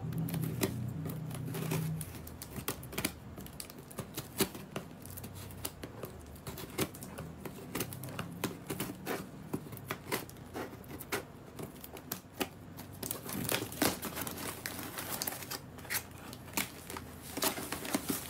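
Scissors cutting open a cardboard box: irregular short snips and scrapes as the blades work through the cardboard and tape.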